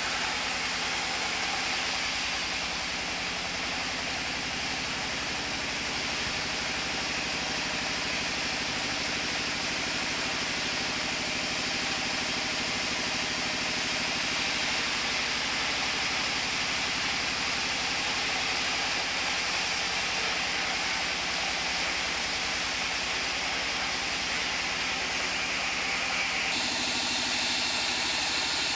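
Sawmill band saw running steadily while it rips mango wood into boards: an even hiss over a low, constant machine hum. The sound changes abruptly near the end.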